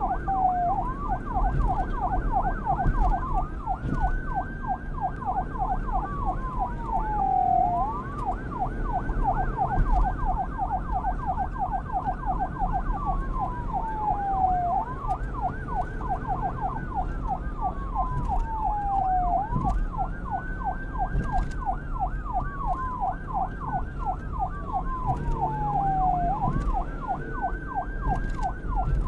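Police siren sounding a fast yelp without pause. A slower wail rises and falls over it every few seconds, with a low rumble underneath.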